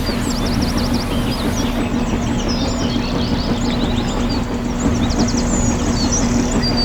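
Steady hum of a small electric motor, holding one pitch, over a low rumble, with many birds chirping rapid, repeated notes.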